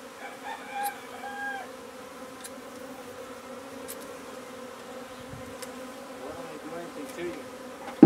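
Honey bees from an opened colony buzzing as a steady hum while the comb is handled during a hive cutout. A rooster crows faintly about half a second in.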